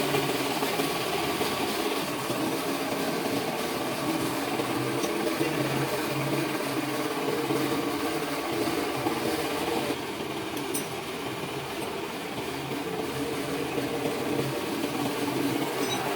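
A vehicle engine running steadily, dipping slightly in level about ten seconds in.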